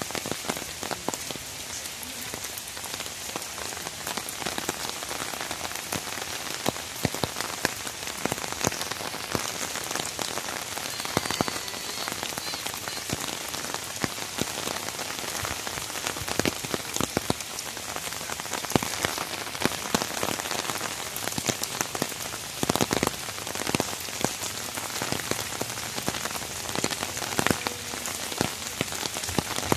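Steady rain falling on puddles, wet ground and foliage: an even wash of rain with a dense patter of close individual drop impacts.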